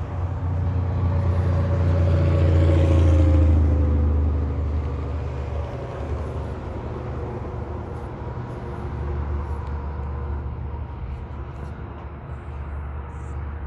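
A road vehicle driving past, loudest about three seconds in and dropping in pitch as it moves away, over a steady low rumble.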